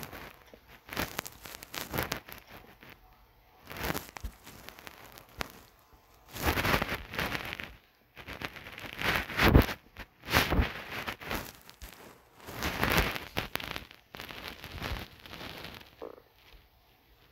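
Irregular rustling and crackling noise in short bursts of about a second each, loudest around the middle.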